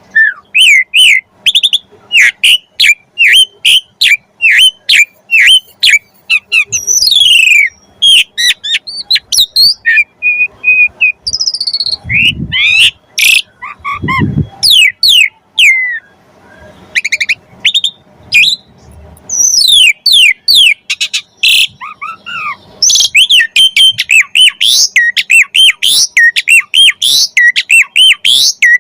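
Asian pied starling (jalak suren) singing a varied song: a fast, continuous run of loud, sharp whistled chirps and gliding notes, broken about halfway through by a few lower, harsher calls and a short pause.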